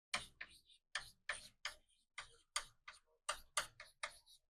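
Writing on a board during a lecture: a quick, uneven run of short tapping and scratching strokes, about three a second.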